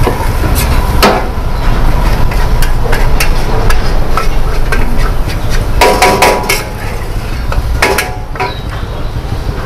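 Metal spatula scraping and knocking against a steel wok as noodles are stir-fried, with many sharp clanks and a cluster of ringing metal knocks about six seconds in and another about eight seconds in. A low steady roar runs beneath from the wok burner.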